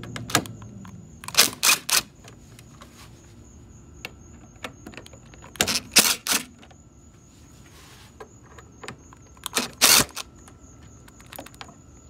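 Sharp clicks in three quick clusters, about four seconds apart, from a screwdriver working the fasteners out of an Audi A5's plastic cowl panel.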